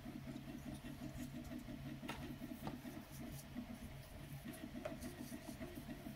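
A few light clicks of hard plastic 3D-printed miniature bases being set down and picked up on a wooden table, over a faint steady low hum.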